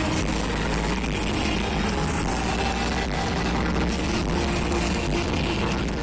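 Live rock band heard through the venue's PA from within the audience: electric guitars, bass and drums playing together in a dense, steady wash of sound.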